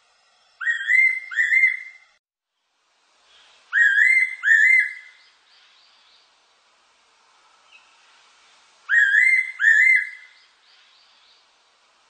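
Fairy pitta calling: three two-note whistled phrases a few seconds apart, each note rising then falling.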